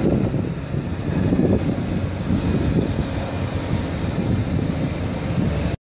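Wind rumbling and buffeting on the microphone over a steady noise of street traffic.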